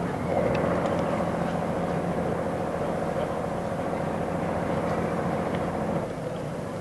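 Steady outdoor machinery hum, like an engine running, over a general background noise, with a few faint clicks.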